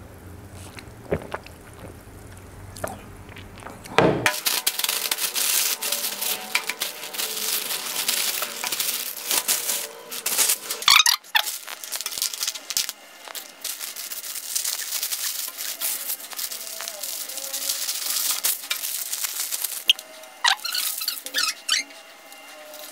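Aluminium foil and thin plastic bags crinkling and rustling as takeaway food is unwrapped, with takeaway containers handled on the table. It starts about four seconds in as a dense crackle of rapid clicks, with a few sharper crackles.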